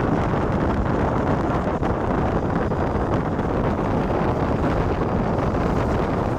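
Passenger train hauled by a WDM2 diesel locomotive, running at speed: a steady rumble with heavy wind buffeting the microphone.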